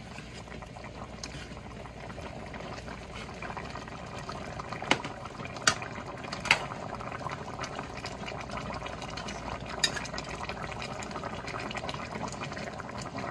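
Turkey necks simmering in a thick gravy in a pan on high heat, bubbling steadily while a spatula stirs them, with four sharp knocks of the spatula against the pan between about five and ten seconds in.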